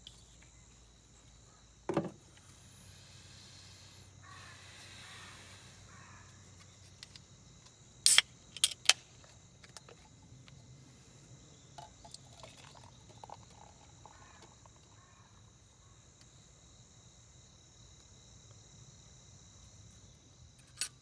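Quiet outdoor ambience with a steady high drone of insects, broken by a few sharp clicks or knocks: one about two seconds in, three close together around eight to nine seconds, and one near the end.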